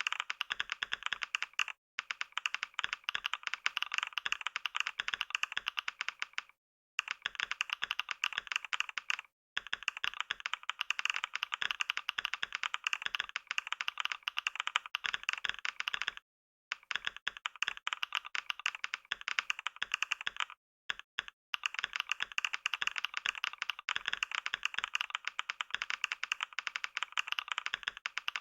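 Computer keyboard being typed on fast and continuously, about 88 words a minute, a dense run of key clicks broken by a few short pauses.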